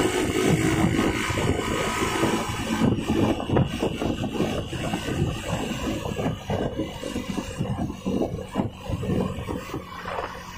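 A bus's diesel exhaust running with a rasping, snoring growl (the 'ngorok' exhaust), a rapid irregular rattle, fading toward the end.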